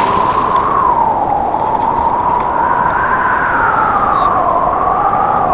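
Storm-force wind blowing against a small tent, heard from inside: a steady rushing noise with a loud whistling tone that slowly rises and falls in pitch.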